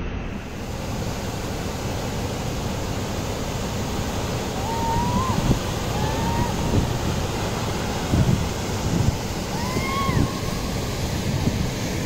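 Steady rushing of a waterfall plunging into its pool, mixed with wind buffeting the microphone in irregular low thumps. A few short calls, each rising then falling in pitch, sound about halfway through and again near the end.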